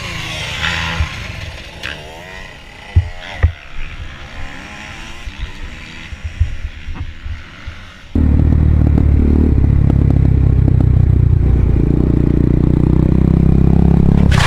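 Motorcycle engines heard through a helmet camera. For the first eight seconds there is quieter engine sound with a couple of sharp knocks and some clatter near the downed dirt bikes. Then the sound cuts suddenly to a street motorcycle's engine running loud and steady under way.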